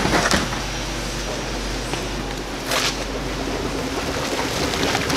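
Lid of a large plastic grape bin being lifted and handled, with two short knocks, one just after the start and one near three seconds in, over a steady hum.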